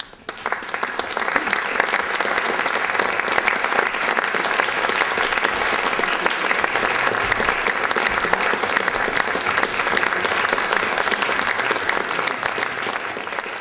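Audience applause that breaks out suddenly out of near silence and carries on steadily, easing slightly near the end.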